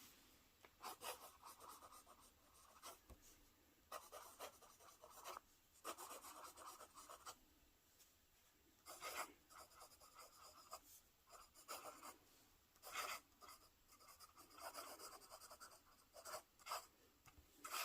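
A pen nib writing on textured Flexbook paper: faint, scratchy strokes in short runs, with brief pauses between words.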